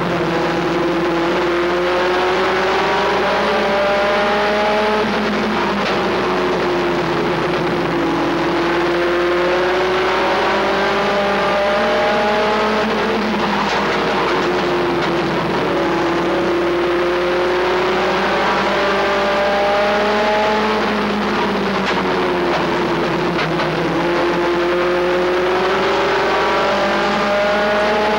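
A race truck's engine heard from inside its own cab at racing speed. It climbs steadily in pitch for several seconds down each straightaway, then falls off sharply as the driver lifts for the turn, repeating about every eight seconds over constant road and wind noise.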